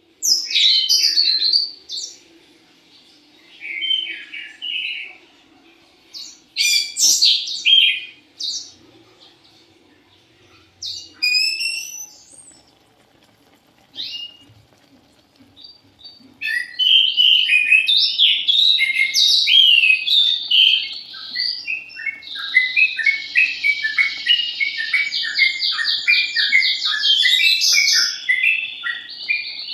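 Small birds chirping and twittering: scattered calls at first, then a near-continuous run of rapid chirps and trills from about halfway through.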